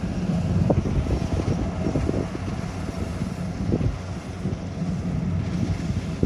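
Rice combine harvester's engine running steadily as it cuts the crop, a low drone, with wind buffeting the microphone.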